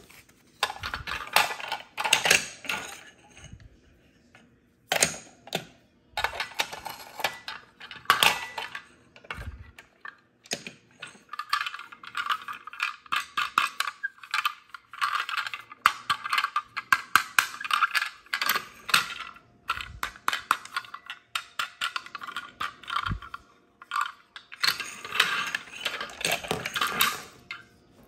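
Hard plastic toy pieces being handled, clicked together and knocked on a hard countertop: a dense run of small clicks and rattles in clusters, with short pauses a few seconds in and around the middle.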